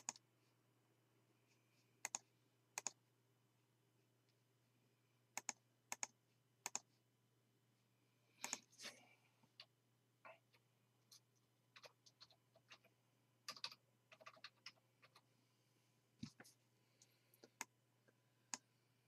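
Faint, scattered clicks of a computer keyboard and mouse, in irregular single strokes and short runs, as a login email is typed in.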